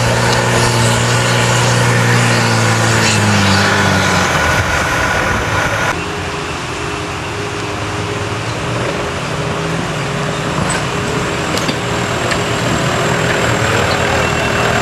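Mitsubishi Pajero off-roader's engine revving hard under load on a steep dirt climb, its pitch rising and then falling over the first few seconds. About six seconds in the sound switches abruptly to the engine running at steadier, lower revs.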